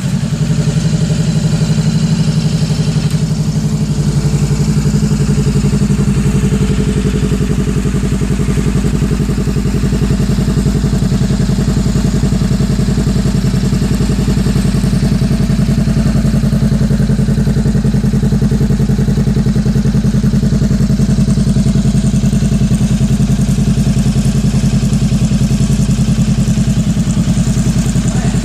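Honda CB500F's parallel-twin engine idling steadily, a loud, even pulsing note with no revving.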